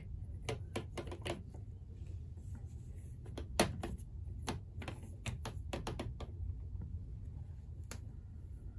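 Irregular light clicks and taps of fingers handling a green-dyed wooden slug on a drill chuck's shaft, with one sharper knock about three and a half seconds in.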